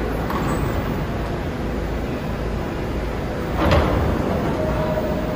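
Subway car doors sliding shut with a single thud about three and a half seconds in, over the steady rumble of the standing train. A short steady tone sounds near the end.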